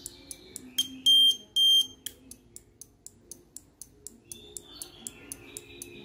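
Small piezo buzzer of an Arduino vibration-sensor alarm giving two short, high-pitched beeps about a second in, the alarm sounding. Background music with a steady ticking beat, about four ticks a second, runs underneath.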